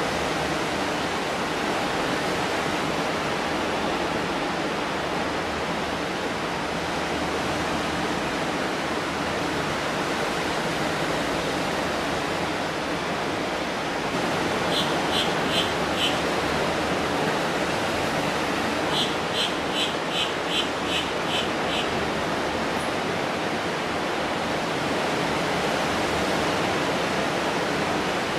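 Steady hiss of small waves washing onto a beach. About halfway through, a bird calls in two quick runs of short, high notes, three or four a second.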